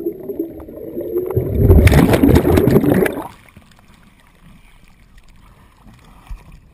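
Underwater rush of scuba bubbles and moving water past the camera, loudest about two seconds in, then cut off suddenly a little over three seconds in as the camera breaks the surface, leaving only faint wind and wave noise.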